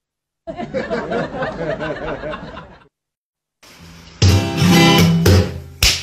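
Strummed ukulele background music with a steady beat comes in about three and a half seconds in. Before it is a short stretch of a wavering, voice-like sound, between brief moments of silence.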